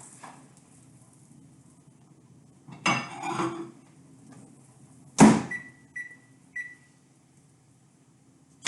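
Microwave oven being closed and set: a clatter, then the door shutting with a loud knock, followed by three short keypad beeps as the cooking time is entered.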